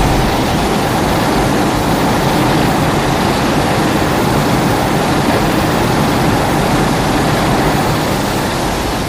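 A loud, steady rushing noise with no clear pitch, a kaiju sound effect from the Godzilla films, easing off slightly near the end.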